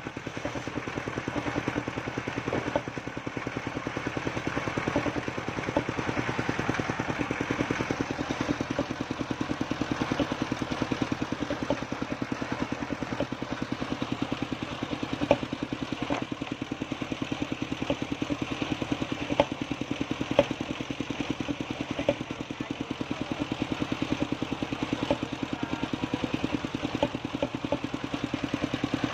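Engine of a mobile circular sawmill running steadily with a fast, even chug as it drives the saw, with a few sharp knocks as albasia logs are handled on the saw table.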